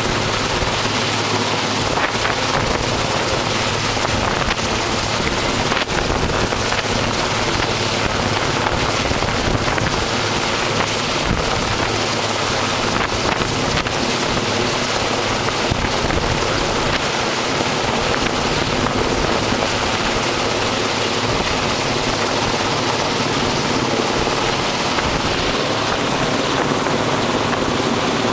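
Large helicopter hovering low overhead: loud, steady rotor and turbine noise with a constant low hum underneath.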